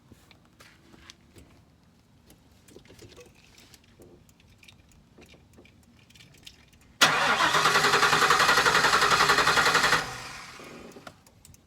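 Ford E250 engine being cranked over by the starter with a fast, even pulsing for about three seconds, then cutting off suddenly and trailing away. This fits a no-start that is put down to a bad fuel pump.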